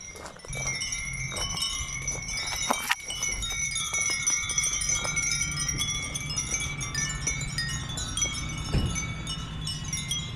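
Many furin (Japanese wind chimes) ringing together in the breeze, a dense continuous tinkling of overlapping high clear tones, over a low steady rumble.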